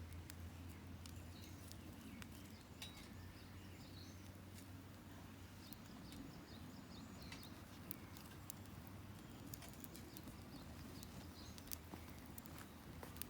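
Small wood fire crackling, with sparse, irregular soft pops and clicks, and faint bird chirps in the background.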